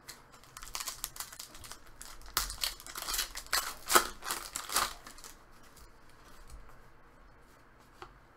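Foil wrapper of a hockey card pack being torn open and crinkled: a run of tearing, rustling strokes, loudest about four seconds in, then fading to faint handling.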